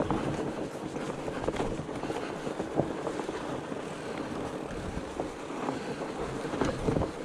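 Fat bike being ridden along a trail: steady rolling noise from the wide tyres, with frequent small clicks and knocks from the bike rattling over the ground.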